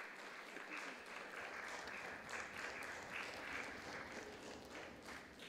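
Theatre audience applauding a dance company's curtain call, the clapping dying down near the end.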